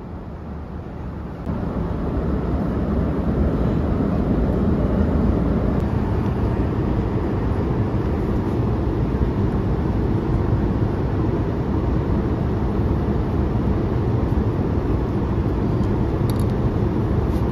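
Steady airliner cabin noise in flight inside a Boeing 787-8, an even low rush of air and engines. It gets louder about a second and a half in, and a few faint clicks come near the end.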